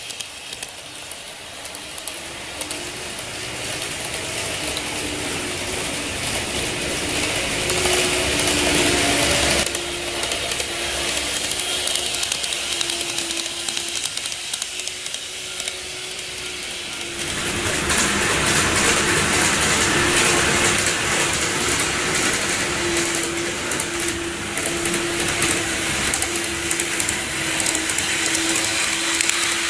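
KATO N-gauge model electric trains running on the layout's track: a steady hum from the small motor with the rattle and clicking of the wheels on the rails. The sound builds over the first several seconds, drops suddenly about a third of the way in, then rises sharply again a little past halfway.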